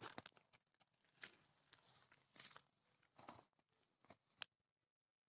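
Near silence, with a few faint, brief rustles and one sharp tick about four and a half seconds in.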